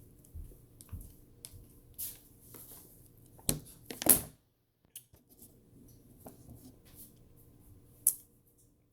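Scattered short clicks, taps and rustles of things being handled. The sharpest and loudest come about four seconds in, with another short one near the end.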